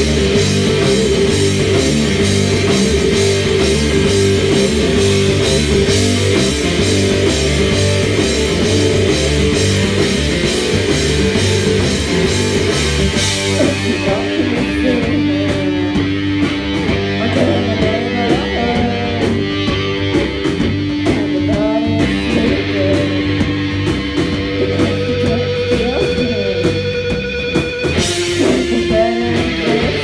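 Rock band playing live and loud: electric guitars, bass and drums with crashing cymbals. About halfway through, the cymbals drop away and a lead vocal comes in over the guitars; near the end the full band with cymbals comes crashing back in.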